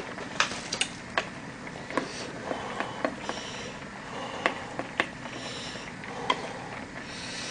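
Eating sounds: a wooden spoon clicking and scraping against a small bowl of hot brown-rice nurungji (scorched rice) soup, with scattered sharp clicks and a couple of short breathy slurps or sniffs in between.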